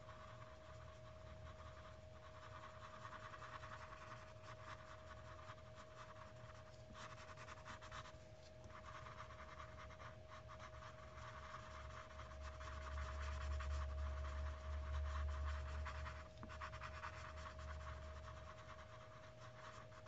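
A drawing tool rubbed back and forth on paper in many short scratchy strokes, blending the shading on a drawn face. A faint steady hum sits underneath, and a low rumble swells for a few seconds past the middle.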